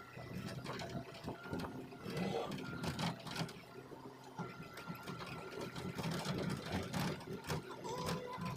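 Hitachi Zaxis excavator's diesel engine running, with a steady whine over it and irregular clanks and knocks throughout.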